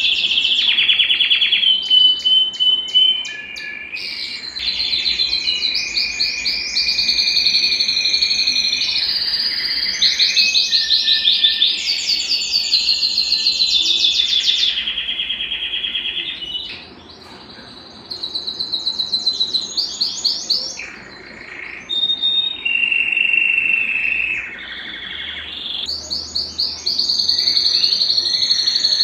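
Domestic canary (canário belga) singing a long, fast, high-pitched song of rapid trills and a few held whistled notes, with a brief pause about two-thirds of the way through.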